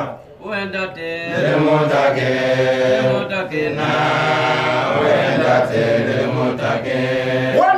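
A man's voice chanting in long, held notes at a steady pitch. The chant starts with a short rising phrase about a second in and stops just before the end, when ordinary speech resumes.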